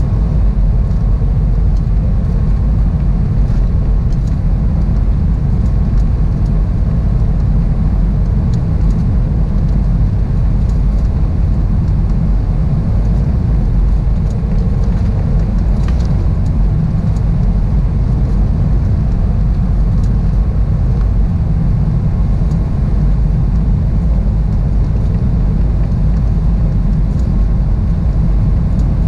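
Steady cabin noise inside an Airbus A320-211 on final approach: the low, even roar of airflow and its CFM56-5A engines, heard from a window seat over the wing.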